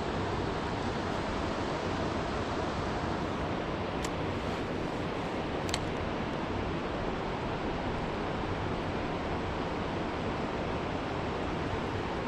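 Steady rushing of flowing river water, with two faint sharp clicks about four and six seconds in.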